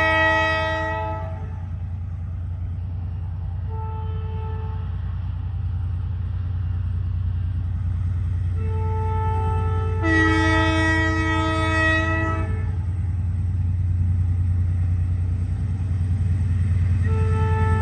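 Passenger train sounding its multi-note horn in several blasts: one that ends about a second in, a short one around four seconds, a long one from about nine to twelve seconds, and another starting near the end. A steady low rumble from the train runs underneath and grows slowly louder as it approaches.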